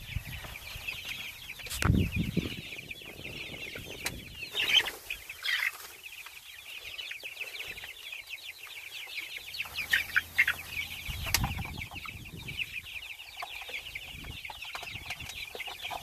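A flock of young meat chickens peeping continuously, many short falling peeps overlapping, with a few louder chirps. A couple of dull thumps, about two seconds in and again after eleven seconds.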